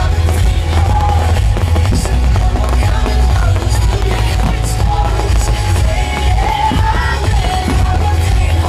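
Loud music with a singing voice over a heavy bass line.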